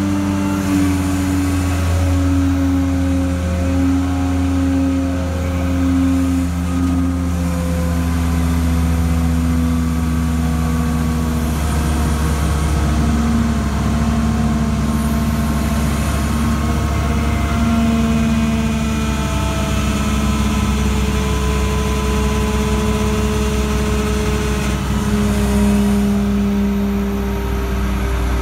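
Crane engine running steadily at raised revs while the cranes hoist and lower the slung concrete section, its pitch drifting slightly up and down.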